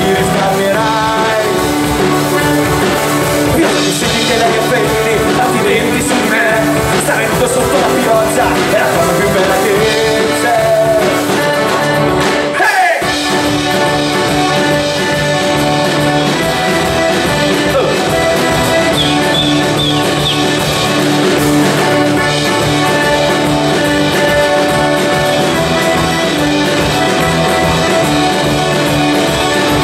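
Live band playing an instrumental passage of a folk-rock song: accordion and guitars over a steady beat, the low end briefly dropping out about thirteen seconds in.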